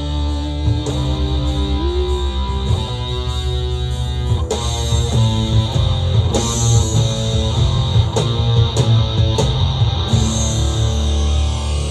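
Live band playing an instrumental break: strummed and picked acoustic guitar over a drum kit, with cymbal hits from about four seconds in.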